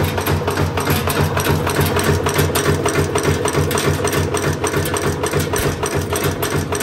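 Automatic wire nail making machine running, its cutting and heading strokes making a rapid, even mechanical clatter.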